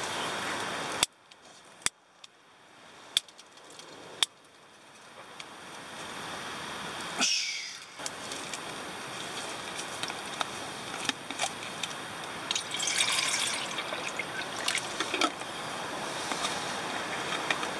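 Water poured from a bottle into a small titanium pot, trickling and sloshing, with a few sharp clicks in the first few seconds.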